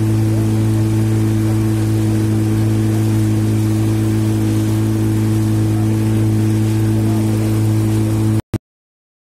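Motor yacht's engine running at a steady cruising speed, a loud, even drone with the rush of the boat moving through the water. It cuts off abruptly about eight seconds in.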